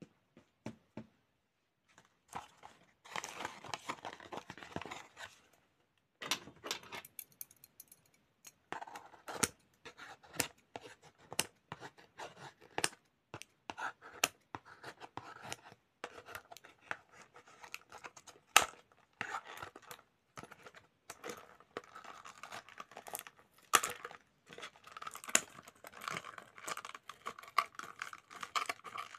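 Toy packaging being taken apart by hand: a cardboard backing card rustling and scraping, with many sharp clicks and snips as scissors cut the threads that tie the doll clothes and accessories to the card.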